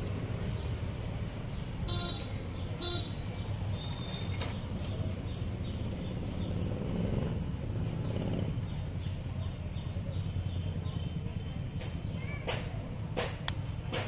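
Steady low rumble of street traffic, with a few sharp clicks and short high chirps over it; the clearest clicks come near the end.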